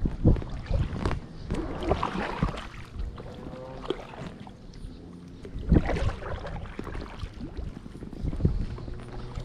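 Kayak paddle strokes from an inflatable boat: the blade dipping and splashing in the water, with a few sharp low thumps of the paddle or body against the boat.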